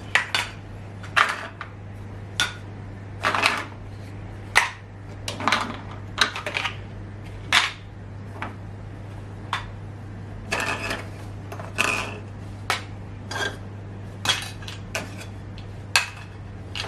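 Small plastic toy grocery items clacking and knocking against each other, picked up and packed into a shopping bag one after another at an uneven pace.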